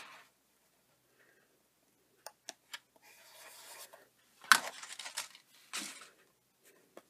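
Crafting materials being handled on a craft mat: a few light taps, then rustling and a sharp crackle as a clear plastic die sleeve is picked up and moved aside, loudest about four and a half seconds in, with another shorter rustle a second later.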